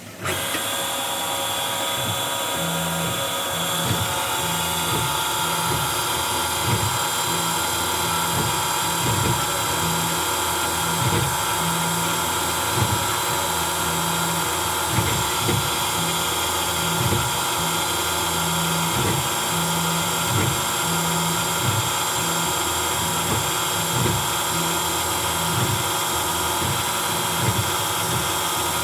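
CNC mill spindle running steadily with a high whine while a small end mill engraves lettering into a metal AR-15 pistol grip. A lower hum cuts in and out every second or two.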